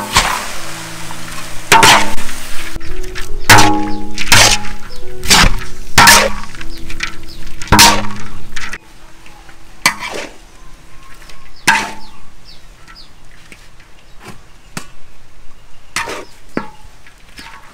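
A metal utensil knocking and clinking against a cooking pan, about one sharp hit a second. The hits are loud at first and lighter after about halfway. Background music plays under the first half and stops.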